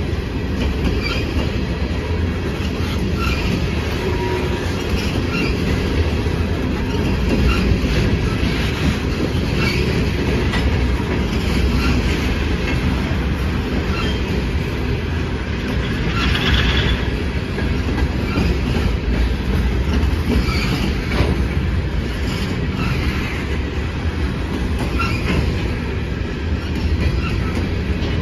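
Empty coal hopper cars of a Norfolk Southern train rolling past: a steady, loud rumble of steel wheels on rail with clickety-clack over the rail joints and short, high wheel squeals now and then.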